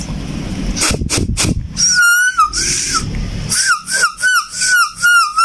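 Air blown and sucked by mouth through an MBK moped's reed valve to test the seal of its newly adjusted reed petal: a few clicks of handling about a second in, then from about two seconds in a series of short, wavering whistles as air is forced past the reed.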